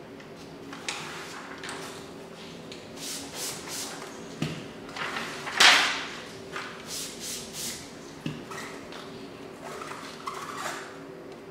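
Clear plastic paint protection film and its backing liner rustling and crinkling as the liner is peeled off and the film is handled, in irregular bursts with the loudest about halfway through. A steady low hum runs underneath.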